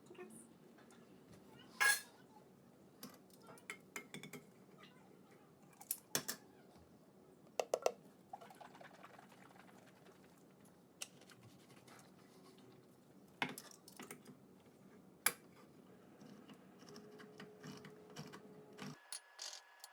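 Scattered clinks and knocks of kitchen utensils and dishes being handled, a dozen or so separate strikes with quiet gaps between them.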